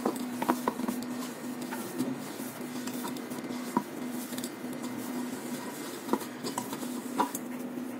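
A hand kneading sticky rice-flour and jaggery dough in a stainless steel bowl: squishing with scattered light clicks and taps against the steel, over a steady low hum.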